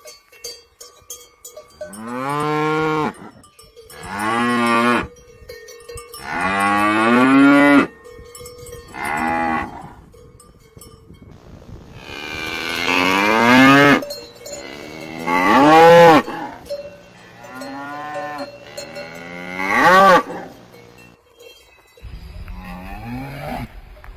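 Cattle mooing: a string of about eight long moos, one after another with short pauses, several of them rising in pitch toward the end.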